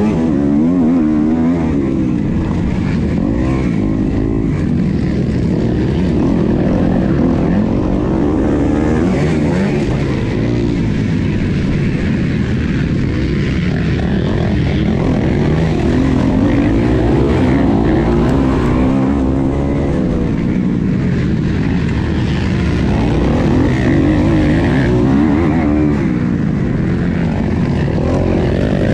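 MX2 motocross bike engine heard from a camera on the bike, revving up and down again and again as the rider accelerates, shifts and brakes through the corners of a dirt track.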